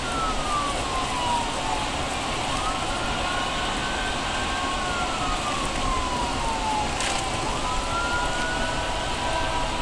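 Steady road and tyre noise heard inside a car at highway speed on a wet road, with a faint siren slowly wailing down and up over it.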